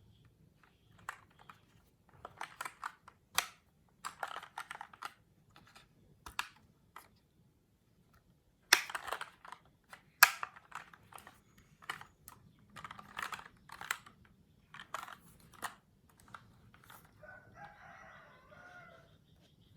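Keys of a Keychron K2 mechanical keyboard being typed in quick bursts of clacks with short pauses between them. A drawn-out call sounds near the end.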